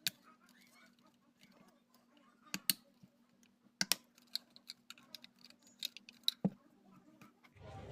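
Scattered sharp plastic clicks and taps of a mini Bluetooth speaker's case and grille being handled and fitted back together, a dozen or so irregular clicks over a faint steady hum. A louder low hum comes in just before the end.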